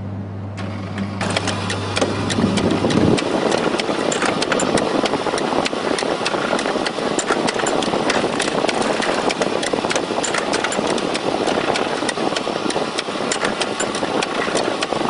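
Suppository rotary machine starting up about a second in, then running with a steady mechanical clatter of many rapid clicks. A low steady hum under it stops about three seconds in.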